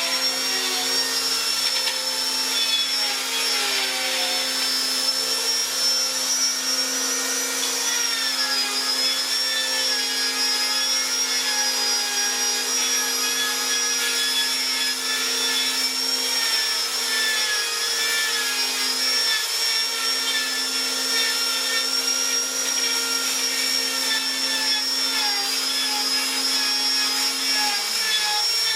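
Electric power tool motor running steadily with a high whine and grinding noise, spinning down near the end as it is switched off.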